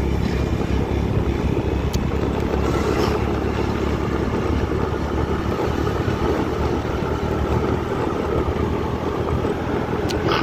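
Steady engine hum and road noise from a moving vehicle, heard from on board.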